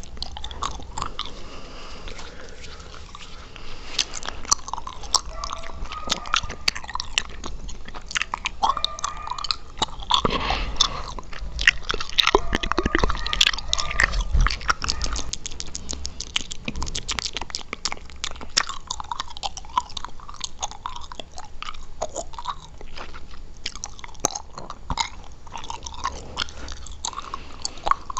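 Close-miked chewing gum and mouth sounds: a steady stream of wet smacks and clicks, busiest and loudest about ten to fifteen seconds in.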